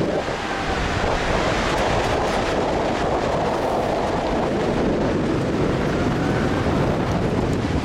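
Steady rush of wind buffeting a helmet-mounted camera's microphone as the bungy jumper falls and swings upside down through the air.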